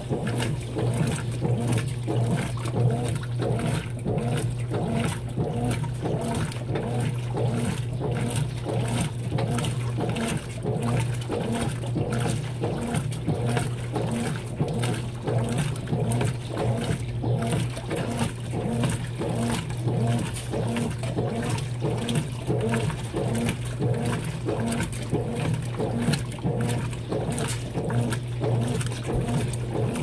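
Consul 16 kg top-load washing machine agitating a load of rugs: water sloshing and churning in the tub in a steady rhythm over a constant low motor hum.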